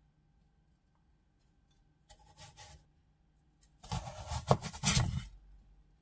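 Kitchen knife cutting slabs off the sides of a large Korean radish on a wooden cutting board. A short faint cut comes about two seconds in. A louder stretch of scraping and knocks on the board follows near four seconds, lasting over a second, as the blade goes through and the slab is handled on the board.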